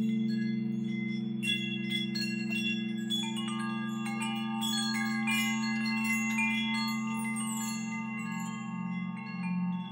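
Crystal singing bowls sustain a steady drone of several low tones, and from about a second and a half in chimes ring out in a shimmering cascade of many high notes over it.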